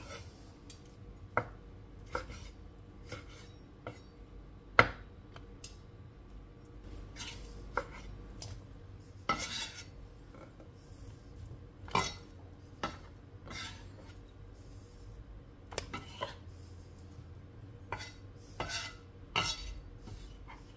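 Kitchen knife knocking and scraping on a bamboo cutting board as boiled pork is cut into small cubes and pushed off the board into a pan. The knocks are sharp and irregular, and the loudest comes about five seconds in.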